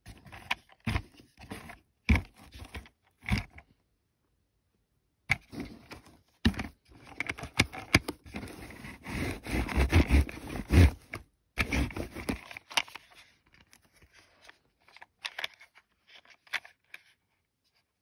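Small plastic toy bulldozer pushed by hand across a surface, its tracks and body scraping in short strokes, then in a longer run of back-and-forth scraping. Scattered clicks and taps follow near the end as it is handled and turned over.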